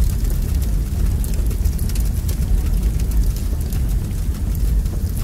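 Steady, deep rumbling noise with faint crackles on top, unbroken throughout: the masking background track of a subliminal recording, with quiet repeated affirmations buried under it.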